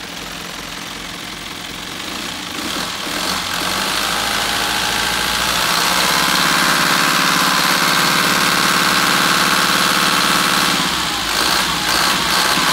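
Mitsubishi 4M40 four-cylinder diesel engine of a Nissan Civilian bus idling, heard with its engine cover open. It grows louder over the first few seconds, then runs steadily, with a few knocks near the end.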